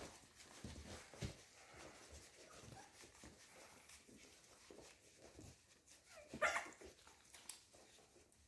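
Young American Staffordshire Terrier puppies vocalising faintly, in scattered short squeaks, with one louder short cry about six and a half seconds in.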